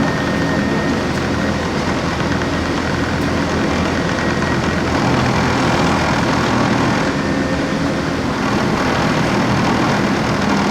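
Cabin noise inside a LAZ E183D1 trolleybus under way between stops: steady electric drive hum with road and body noise, swelling slightly near the middle.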